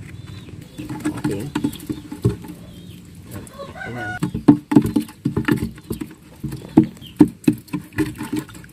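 Chickens clucking, with a rooster crowing briefly about halfway through. Against it come repeated knocks and taps as a thick paste of lime and fungicide is mashed and stirred in a container.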